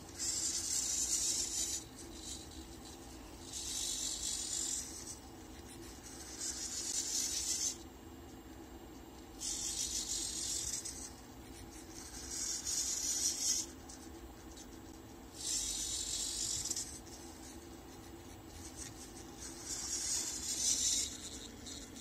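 Felt-tip marker held in a robot arm's gripper scratching across paper in about seven separate strokes of one to two seconds each, with short pauses between, as the arm draws a smiley face. A steady low hum runs underneath.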